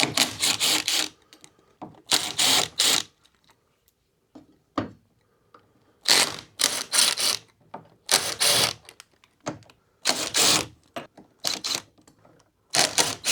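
Ratchet clicking in short bursts on its return strokes as hex screws are backed out, about six bursts with pauses between.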